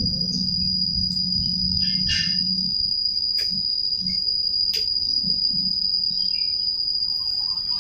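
Steady high-pitched insect trill, with a few sharp clicks in the middle.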